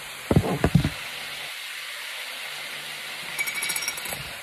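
A cluster of quick, loud knocks about half a second in, then a brief clinking rattle near the end, over the steady sizzle of meat and onions frying in the pan.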